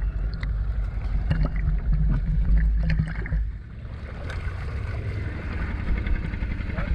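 Boat engine running, heard first through the water as a deep rumble with scattered clicks and bubbling, then, after a brief dip about three and a half seconds in, as a steadier running sound with more hiss above the surface.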